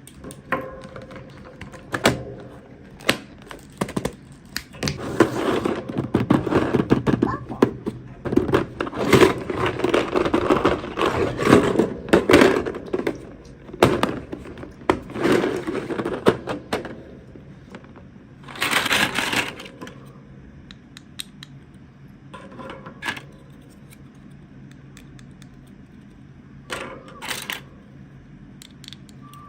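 Plastic toy packaging and small plastic pieces being handled: a run of sharp clicks and taps, with a long stretch of dense crinkling and crackling in the middle and another short burst of it a little later.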